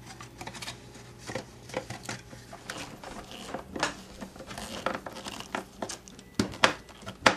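Hard plastic housing of an electric hedge trimmer being handled and fitted back together, with scattered small clicks, scrapes and rattles as a screwdriver drives the cover screws in. Two sharper plastic knocks come near the end.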